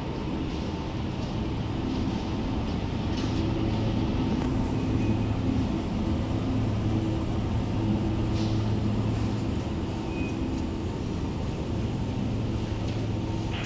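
A steady low mechanical hum, with a few short high beeps.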